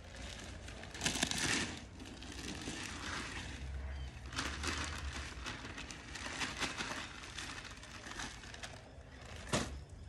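Irregular rustling and crinkling noise, louder for a moment about a second in, with one short sharp knock near the end.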